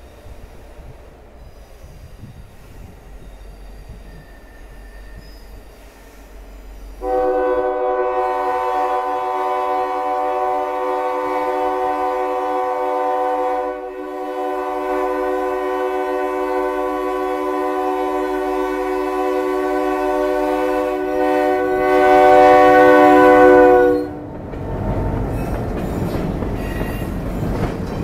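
Ex-Conrail EMD GP10 diesel locomotive approaching with a low engine rumble, then sounding its air horn, a chord of several steady tones, in two long blasts with a brief break between them, loudest just before it stops. After the horn, the locomotive and passenger cars rumble past with the wheels clattering on the rails.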